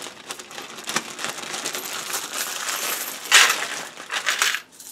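1982 pennies clinking and jingling together as a hand handles a pile of them, with two louder clinks about three and a half and four and a half seconds in.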